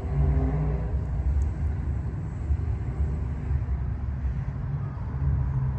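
Steady low rumble of road traffic, with engine hum rising briefly near the start and again near the end.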